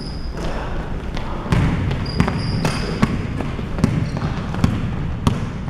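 A basketball bouncing on a hardwood court in sharp thuds, irregular at first and then spaced about every half-second to second as the ball is dribbled, with short sneaker squeaks on the floor.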